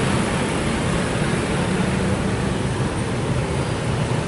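Road traffic crawling in a jam: a steady hum of bus and car engines idling and creeping forward.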